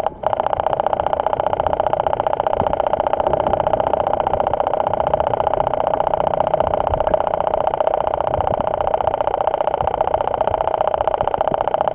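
Steady rushing, fluttering noise of river current flowing over an underwater camera, with a strong midrange hum.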